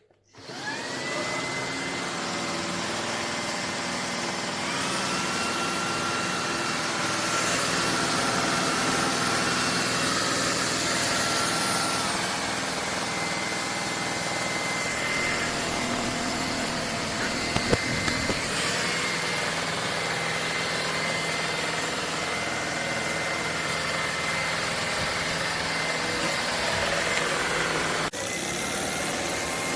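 Shark Stratos cordless stick vacuum switching on and running with a steady high whine. Its pitch shifts a few times, with a couple of clicks about two-thirds of the way through, and it drops suddenly in level near the end.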